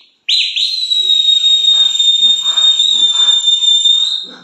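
A loud, high finger whistle: two quick rising swoops, then one long level note held for about four seconds, whistled to call the monkeys gathered around him.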